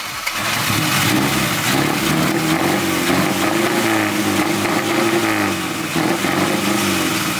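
1981 Toyota Corolla engine running with its starter motor stuck engaged, the starter grinding louder than the motor. Steady throughout.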